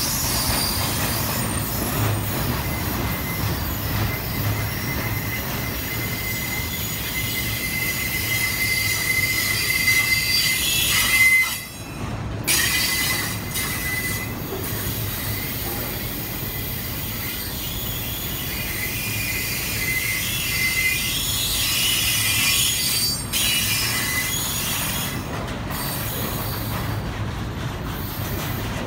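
Railcar steel wheels squealing against the rails as a train rolls through, a steady high-pitched squeal over the low rumble of the cars. The sound drops out briefly about twelve seconds in.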